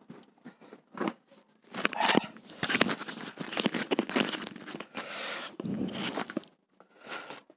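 Handling noise of a clip-on lapel microphone being fiddled with and reclipped at the chest: close scraping, rustling and sharp clicks for several seconds, after a single knock about a second in.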